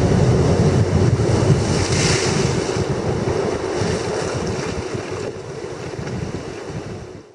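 Surf washing and churning through a narrow channel between lava rocks, with wind buffeting the microphone. It gradually fades and cuts away at the very end.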